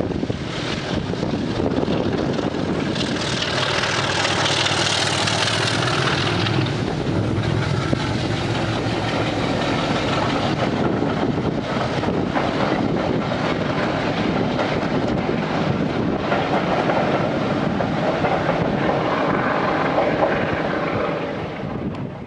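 Class 33 diesel locomotive hauling a passenger train past at speed, its engine loudest a few seconds in, followed by the coaches rumbling over the rails; the sound drops away sharply near the end.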